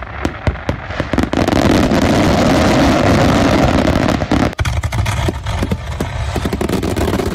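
Mass barrage of 60-gram Excalibur canister artillery shells firing and bursting: a few sharp separate bangs, then from about a second in a dense unbroken din of overlapping reports. Near the middle it briefly thins into distinct bangs before the barrage runs on.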